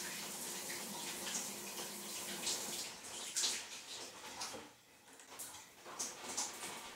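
Shower running in a stall, water spraying and splashing in a steady hiss that dips briefly about two-thirds of the way through.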